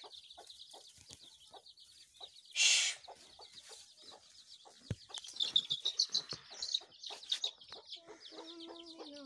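Chickens in a yard: a steady run of fast, high peeping and clucking, with a brief rustling burst of leaves about three seconds in and a longer held, lower call starting near the end.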